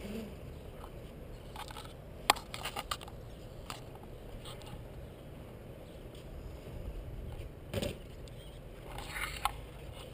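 Board wheels rolling on a concrete skatepark surface with a steady low rumble, broken by a few sharp clicks and scrapes, the loudest about two seconds in and more near the end.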